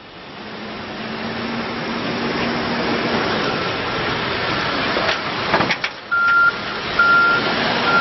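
2013 Case 580N backhoe loader's diesel engine running as the machine drives, growing louder over the first couple of seconds, with a few knocks about five seconds in. Just past the halfway point its reversing alarm starts beeping, about one beep a second, as the machine backs up.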